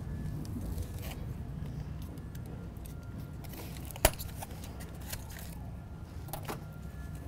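Light clinks and handling noises from bicycle parts being moved during assembly, with one sharp knock about four seconds in, over a low steady hum.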